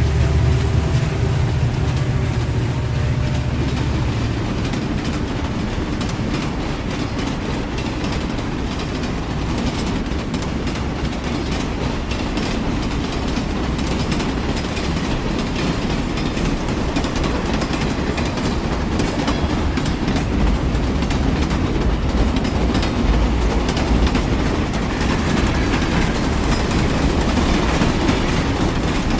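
Train rolling past on the rails, its wheels clattering over the rail joints in a continuous clickety-clack over a heavy low rumble. The rumble is strongest at the start and again about two-thirds of the way through.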